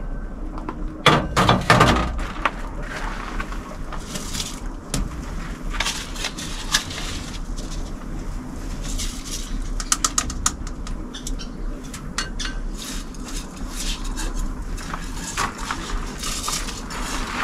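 Washed rice being scooped out of a pan with a plastic scoop and tipped into a pot, giving scattered scrapes, clinks and knocks of scoop against metal cookware.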